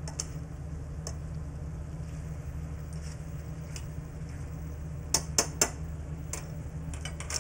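Metal tongs clicking and tapping against a stainless sauté pan as chicken pieces are moved around in it: a few scattered taps, then three quick sharp clicks about five seconds in. A steady low hum runs underneath.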